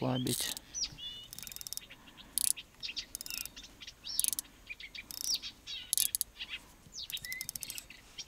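Small birds chirping and trilling: a string of short high calls and quick rattling trills.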